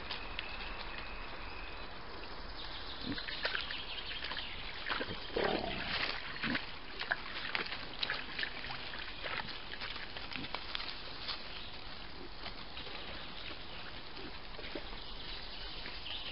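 Wild boars at a mud wallow: squelching and splashing in mud and water, with grunts, busiest from about three to eleven seconds in, over a steady background hiss.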